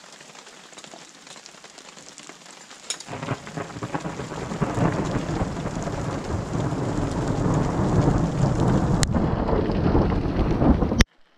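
Steady rain, then about three seconds in a deep rolling thunder rumble sets in and swells louder over the rain until the sound cuts off suddenly near the end.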